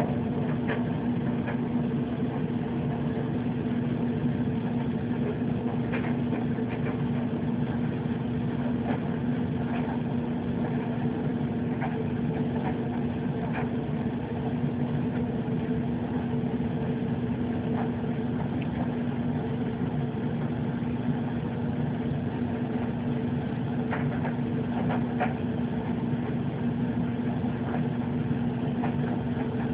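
A steady mechanical hum with a constant low tone that does not change, with a few faint clicks scattered through it.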